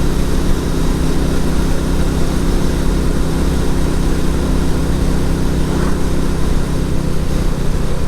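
Royal Enfield Classic 350's single-cylinder engine running steadily as the motorcycle rides along, under a steady rush of wind and road noise.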